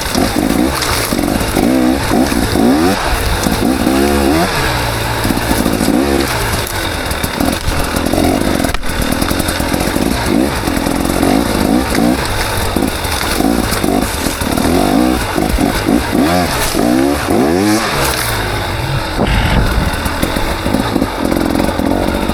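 KTM 300 XC two-stroke dirt bike engine revving up and falling back again and again as the throttle is worked on and off.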